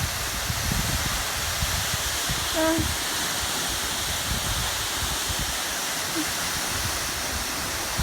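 Wli waterfall's water falling and splashing, a steady rushing noise. A short voice sound cuts in briefly about a third of the way in.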